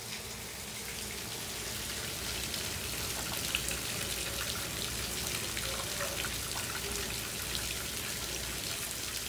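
Rain falling steadily: an even hiss with scattered individual drops ticking close by.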